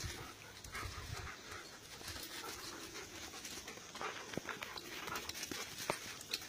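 A puppy and another dog play-wrestling, panting and scuffling, with scattered sharp clicks; the sharpest come about four and six seconds in.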